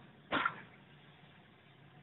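Passenger coach wheels of an arriving train knocking over a rail joint: a sharp double knock about a third of a second in, over a faint steady rolling rumble.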